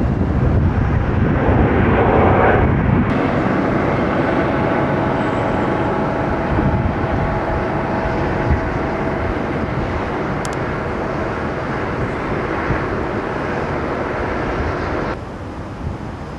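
Vueling Airbus A320's jet engines running loud as it rolls along the runway, cut off abruptly at about three seconds by a hovering helicopter's engine and rotor noise with a steady whine. Near the end this gives way to the quieter engine noise of an Aeroflot Airbus A320 on final approach.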